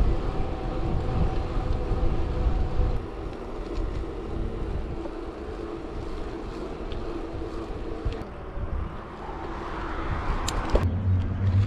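Wind buffeting a handlebar-mounted action camera's microphone while a mountain bike rolls along an asphalt road, with a faint steady tyre hum underneath. The noise breaks off abruptly near the end, giving way to a lower rumble.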